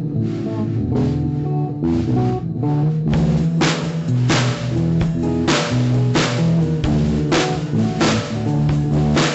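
Rock band recording: electric guitar and bass play a riff, and a drum kit comes in about three seconds in with steady kick and snare hits.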